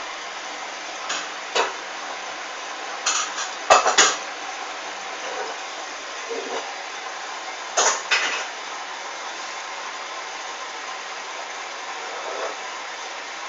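Hoover DYN 8144 D washing machine running mid-cycle: a steady hiss and low hum from the turning drum, with sharp clanks every few seconds as the load knocks against the drum, a few of them in quick clusters.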